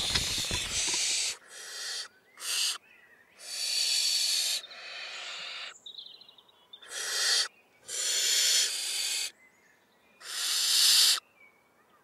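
Barn owl chicks in the nest giving harsh hissing begging calls, about seven of them, each half a second to a second and a half long, with short silent gaps between.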